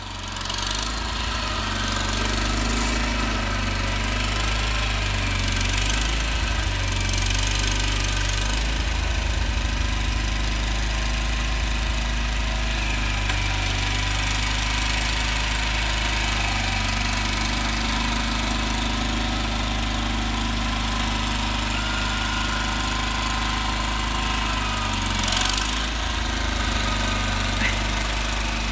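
Gravely 20-G Pro garden tractor's engine running steadily at a constant speed, with a couple of brief hissing rushes around 7 seconds in and near the end.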